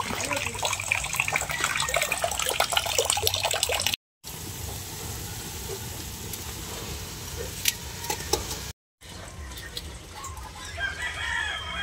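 Three short edited clips. The first is a dense crackling noise. Then ground meat fries in a wok over a wood fire with a steady sizzle. Near the end come a few short chicken calls.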